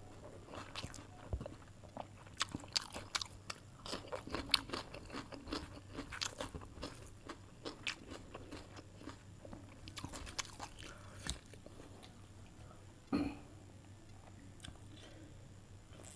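A person chewing and crunching food close to the microphone, with many crisp crunches in quick succession for most of the time, then softer chewing. There is a single louder thump about 13 seconds in.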